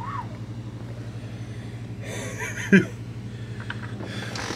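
A steady low engine hum that pulses evenly, with a single knock about two-thirds through and rain hiss coming up near the end.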